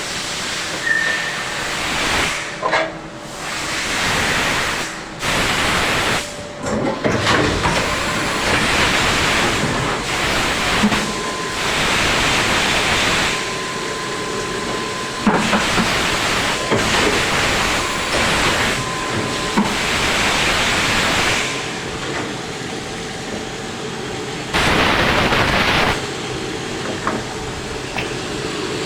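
CNC vertical machining centre running: a continuous hiss that swells and drops in loudness, with a faint steady whine at times and a louder burst of hiss near the end.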